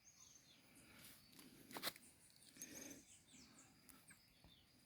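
Near silence, with faint bird chirps in the background and a soft click a little under two seconds in.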